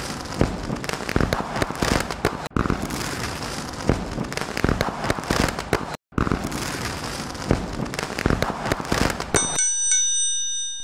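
Dense crackling and popping, firework-like, cut twice by momentary dropouts; near the end it stops and a bright bell chime with several ringing tones sounds, the notification-bell effect of a subscribe-button animation.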